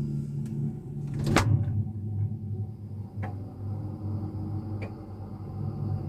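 Refrigerator door shut with one thud about a second and a half in, heard from inside the fridge. After it a steady low hum continues inside the closed fridge, with a couple of faint ticks.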